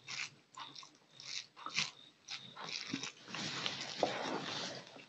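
Fingers mixing rice with fish curry on a plate, in short wet squelching strokes, then a handful eaten from the fingers: a longer, louder stretch of mouth noise from about three seconds in as the food goes into the mouth and is chewed.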